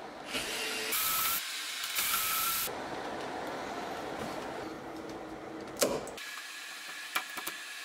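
Metal door-knob lockset being worked off the door: two short scraping slides about one and two seconds in, then a few sharp metallic clicks near the end.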